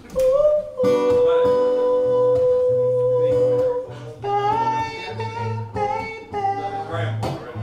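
Live acoustic guitar playing under a long held melody note that wavers slightly, followed by shorter held notes.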